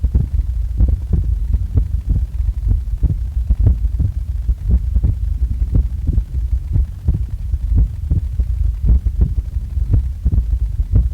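A person's heartbeat, recorded just after waking: a steady, regular run of low thumps over a continuous low rumble.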